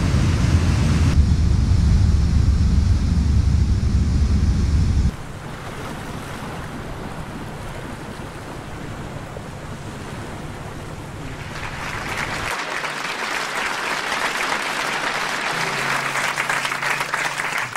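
The ship's 25,000-horsepower marine diesel engines running with a loud, deep rumble in the engine room, cutting off suddenly about five seconds in. Then the quieter rush of the sea and the ship's wake with wind on deck, giving way after about eleven seconds to an audience applauding, the applause growing louder.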